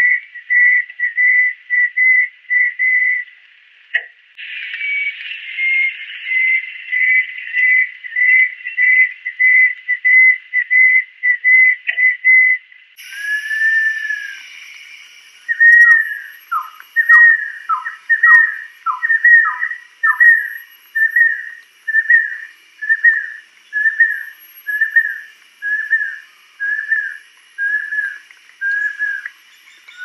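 Banded kingfisher giving a long series of clear whistled notes, about two a second. About halfway through the notes turn into downslurred whistles, a few sliding much lower, over a faint steady hiss.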